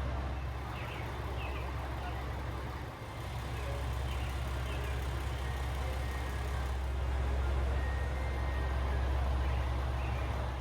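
Diesel railcar engine idling, a steady low drone that dips briefly about three seconds in.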